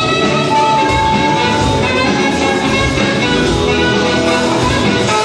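Live band playing loud amplified music, with one high note held for about a second near the start.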